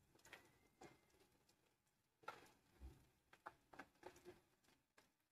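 Near silence broken by a few faint, scattered taps and clicks of a spoon against a pressure cooker as chopped onion is added and stirred into the hot oil.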